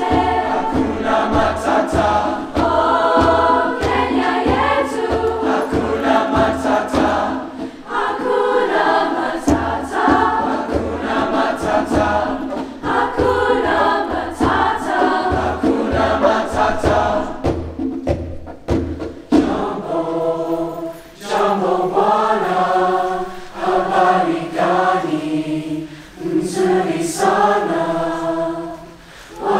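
Large choir of mixed voices singing in parts over a steady hand-drum beat of about two a second. About twenty seconds in the drum stops and the voices carry on alone.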